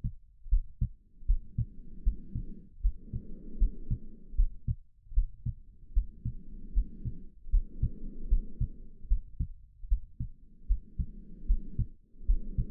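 A steady heartbeat, low double thumps repeating evenly, under slow, even human breathing in and out, each breath a soft rush lasting a second or two.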